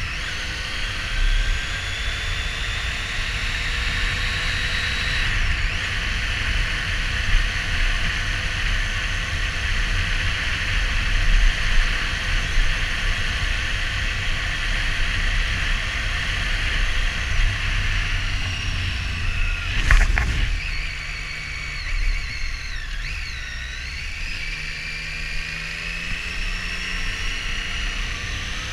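Triumph Street Triple R's three-cylinder engine running on the road, its pitch slowly rising and falling with the throttle, over a steady rush of wind on the camera microphone. A sharp knock sounds about twenty seconds in.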